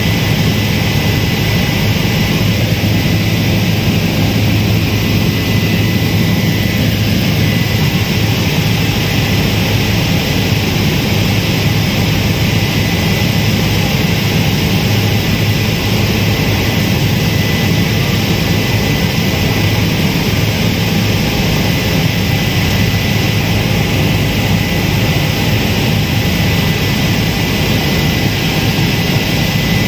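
Helicopter engine and rotor noise heard from inside the cabin in flight: a loud, steady drone with a constant high whine on top.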